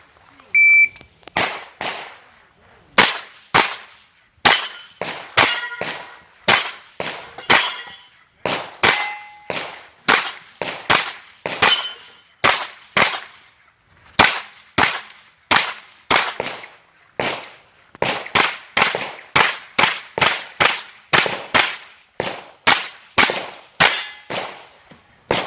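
A pistol-caliber carbine firing a long string of about forty shots at a steady pace of roughly two a second. Some shots are followed by the short ring of hit steel targets.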